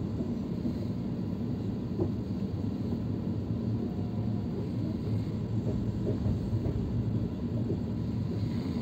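Steady low rumble of a passenger train coach running slowly, heard from inside the coach, with one faint click about two seconds in.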